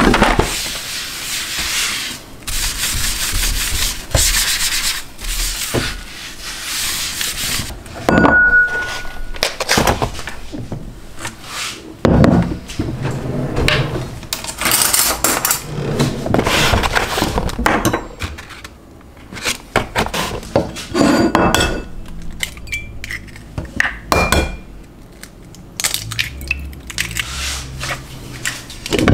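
Breakfast-making kitchen sounds: repeated rubbing and scraping against wood, with light knocks from utensils. A short beep sounds about eight seconds in.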